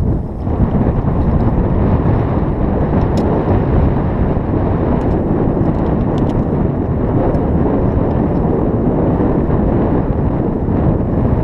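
Wind buffeting the microphone: a steady, loud low noise throughout, with a few faint ticks.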